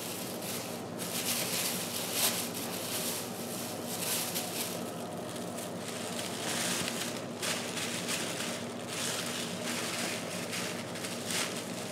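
Butternut squash soup boiling in a stainless steel pot: a continuous bubbling hiss that swells and eases, over a steady low hum.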